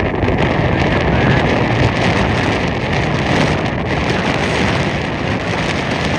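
Wind blowing across the microphone: a loud, steady rushing noise with no breaks.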